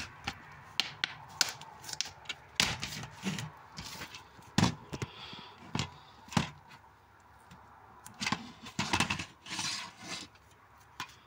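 Plastic DVD cases being handled: irregular clicks and knocks with rubbing and scraping as the cases are picked up and turned over, with a quieter spell a little past the middle.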